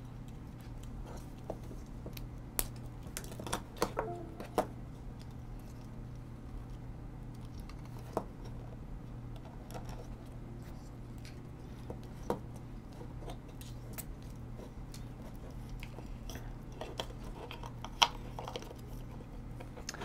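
Scattered light clicks and taps from the plastic connectors and jumper wires of an Arduino board being handled, a few in quick succession early and a sharper click near the end, over a low steady hum.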